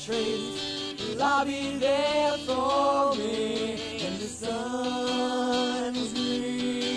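Acoustic song: voices singing long, sliding notes over acoustic guitar.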